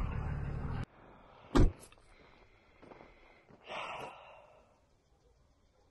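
Steady driving noise inside the truck cab cuts off suddenly about a second in. Then comes a single loud thump, and a short breathy rush a couple of seconds later.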